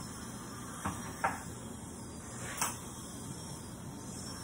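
Steady hiss with three short, sharp clicks: one about a second in, one just after it and one a little past halfway.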